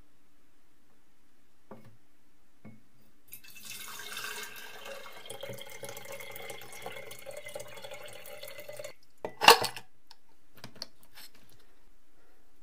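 Citric acid rust-removal bath poured from a clear plastic tub into a glass jar: a steady splashing pour lasting about five seconds. It ends with a brief, loud clatter.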